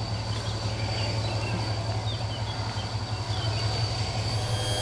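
Low, steady engine hum from a ship on the water, with a few faint bird chirps.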